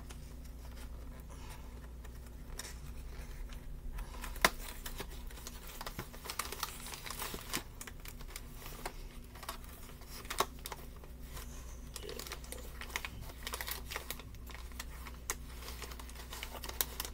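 Cardboard box of pork coating mix and its packets being handled: scattered small clicks, taps and crinkles, sparse at first and busier from about a third of the way in, with one sharper click early. A steady low hum runs underneath.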